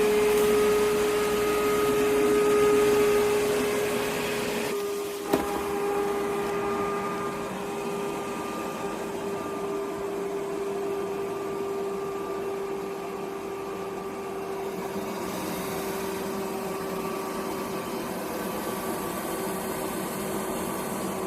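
iRobot Roomba 105 robot vacuum running: a steady motor hum with a high whine over it, and a single click about five seconds in.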